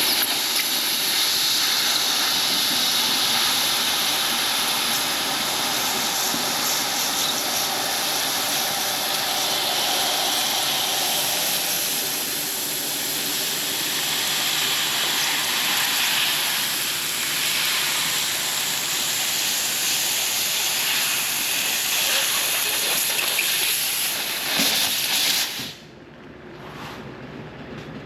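Handheld fiber laser, set at about 800 watts, firing on steel body panel as it is drawn along a line to cut through two layers of sheet metal: a loud, steady hiss that stops abruptly about 26 seconds in.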